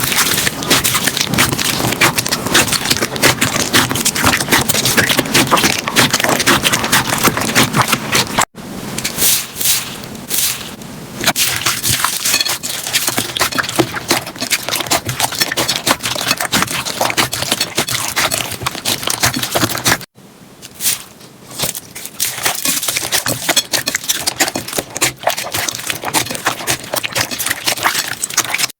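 Slime being squeezed and played with by hand: a dense, continuous run of small clicks, crackles and sticky pops. The sound breaks off abruptly twice, about a third and two thirds of the way through, where one take is cut to the next.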